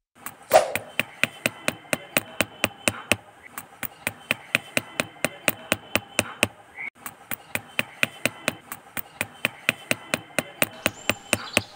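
Small claw hammer tapping the top of a thin wooden stick to drive it into sand. The taps are light and even, about three a second, with a short pause about seven seconds in.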